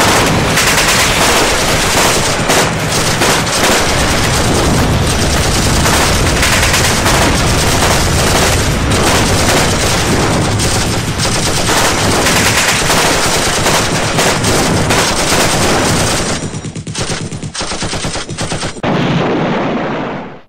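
Loud, continuous rapid gunfire like machine-gun fire. It thins into more separate shots near the end and then cuts off suddenly.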